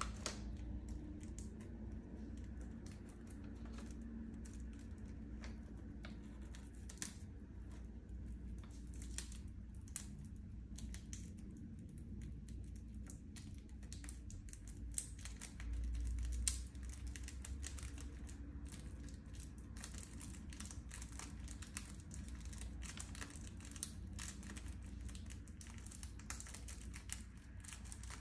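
Fingers and nails picking at and peeling plastic shrink-wrap off a CD jewel case: irregular small clicks and crinkles of film and hard plastic, with a dull low bump about halfway through.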